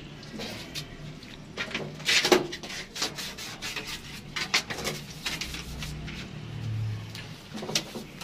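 Hand work on plumbing pipe: a run of irregular short knocks, clicks and scrapes, the loudest cluster about two seconds in.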